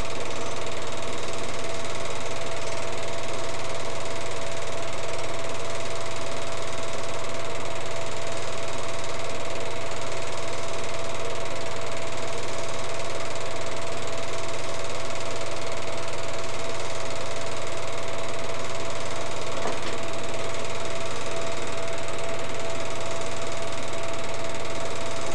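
Home-movie film projector running: a steady mechanical motor whir with a constant high hum, unchanging throughout.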